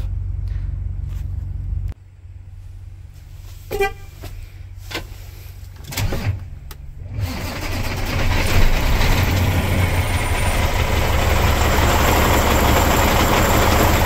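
A Cat C15 diesel truck engine starts about seven seconds in and then runs loudly and steadily. It does not sound good: the engine has a weird overhead noise and cylinders three and four are not firing. Before that, a steady low hum cuts off after about two seconds and a short beep sounds about four seconds in.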